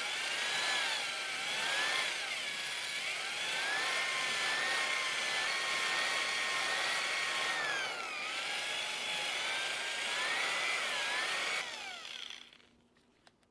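Corded electric drill spinning a cylinder-cleaning brush in and out of a two-stroke outboard's cylinder bores, scrubbing out the grit left after plateau honing. The motor's whine holds steady, dips in pitch briefly about eight and eleven seconds in, and winds down about twelve seconds in.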